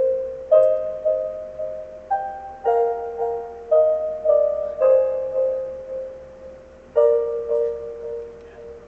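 Slow solo piano melody, single notes struck about two a second and left to ring out. After a short pause a last phrase begins about seven seconds in and fades out near the end.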